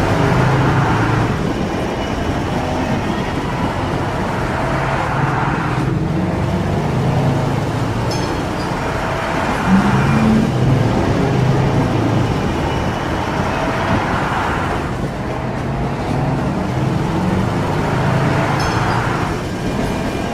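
Bulldozer's diesel engine running and working, its sound swelling and easing every few seconds as the load changes, with a short knock about ten seconds in.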